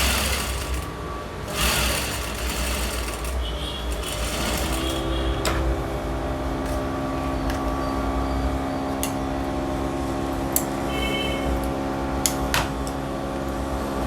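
Sewing machine stitching, with a steady hum setting in about four seconds in and a few sharp clicks along the way.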